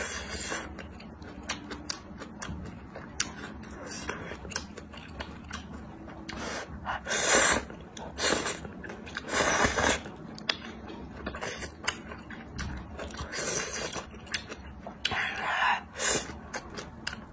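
Woman slurping thick noodles off chopsticks, several loud slurps a second or two apart, with quieter chewing and mouth sounds between them.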